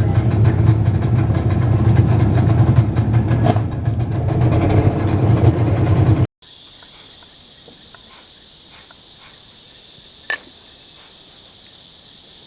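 A motor vehicle's engine running as a loud, steady low rumble for about six seconds. Then it cuts off abruptly to a steady high-pitched insect chorus, with one sharp click about ten seconds in.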